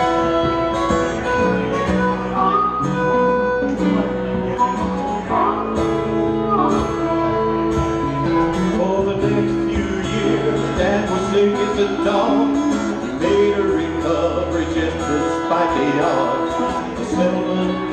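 Live band playing an instrumental passage of a country-rock song on electric and acoustic guitars, with no singing.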